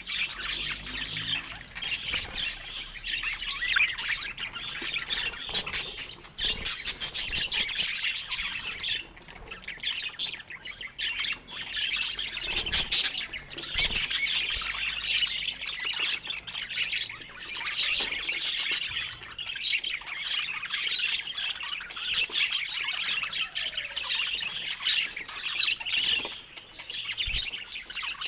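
Budgerigars chattering and warbling without a break, a busy mix of quick chirps, clicks and squawky trills.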